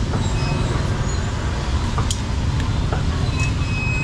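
Busy street-market ambience dominated by a steady low rumble of passing motor traffic, with a few sharp clicks about two seconds in and a short high tone near the end.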